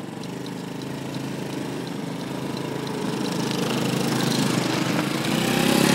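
Honda Cub's small four-stroke single-cylinder engine running and getting steadily louder as the motorcycle pulls away and rides closer, its note rising in pitch from about halfway through.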